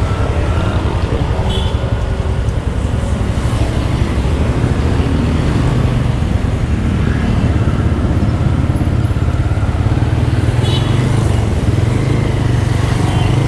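Motorcycle riding through traffic: a steady engine and wind rumble on the rider's own microphone.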